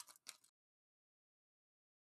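Near silence: a faint rustle of a foil trading-card pack fades out in the first half second, then the audio drops to dead silence.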